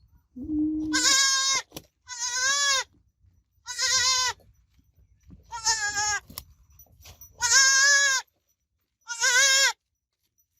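Goat kid bleating: six high-pitched calls, each under a second and wavering in pitch, about one to two seconds apart.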